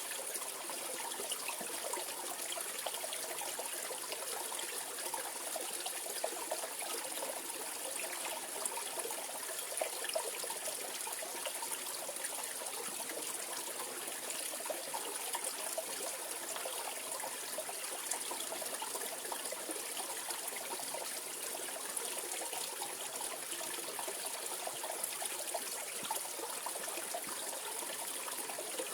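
A mountain-valley stream flowing over rocks, with a steady rush of water and light splashing and trickling.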